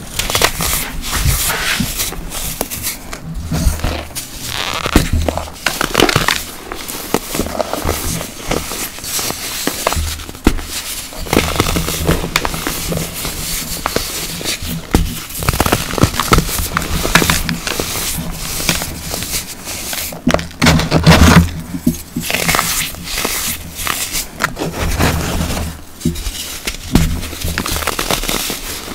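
Blocks of pressed baking soda crumbled and squeezed between the fingers: irregular soft, powdery crunches and crackles.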